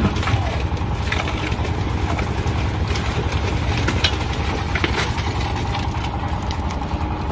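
Wet concrete pouring off a chute into a steel wheelbarrow, the gravel in the mix rattling and slapping in many small hits. Under it runs the steady hum of a concrete mixer's engine.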